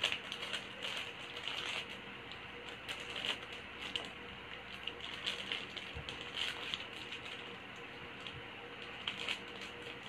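Clear plastic bags of minifigure parts crinkling and rustling as they are handled, in faint, irregular little crackles and clicks.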